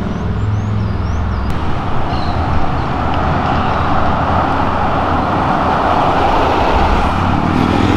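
Road traffic passing: a low engine hum fades in the first second or so, then a large Chevrolet Silverado pickup drives by close, its tyre and engine noise swelling as a broad rush through the middle and easing off toward the end.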